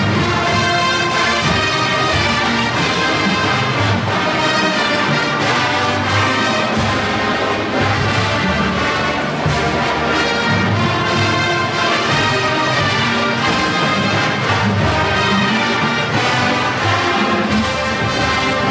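Marching band playing, led by brass (trombones and horns) over a steady beat from the percussion.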